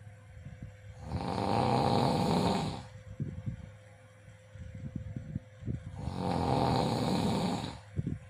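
A person snoring: two long snores, each lasting about two seconds, about five seconds apart, with softer low crackling between them.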